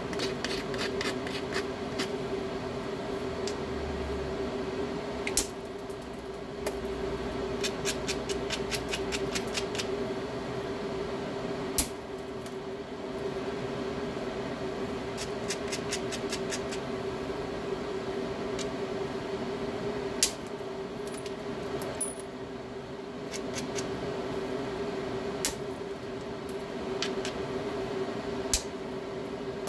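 Stone knapping with a hammerstone while shaping a biface. About half a dozen single sharp stone-on-stone strikes come several seconds apart. Between them are three runs of rapid light clicks, eight to ten a second, typical of a stone worked along the edge to prepare striking platforms.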